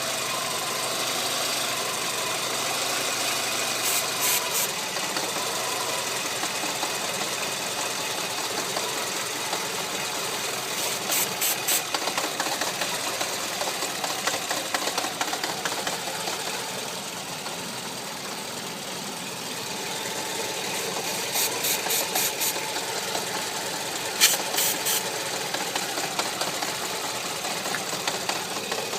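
Renault Megane's 1.6 16-valve four-cylinder petrol engine idling steadily, an engine with a vacuum (false-air) leak. A few times, brief clusters of quick, sharp high-pitched hissy pulses sound over it, the sharpest a little after the middle.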